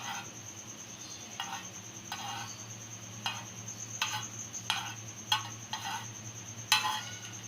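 Metal spoon scraping and knocking against a frying pan while stirring browned, melted sugar and ghee: about nine short strokes, irregularly spaced, the loudest near the end.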